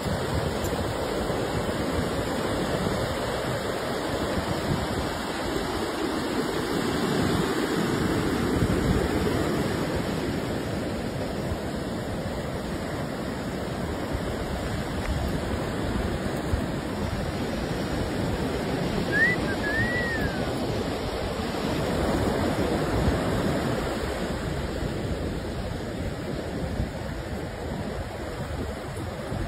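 Ocean surf breaking and washing up on a sandy beach, a steady rush that swells and eases, with a brief high chirp about two-thirds of the way through.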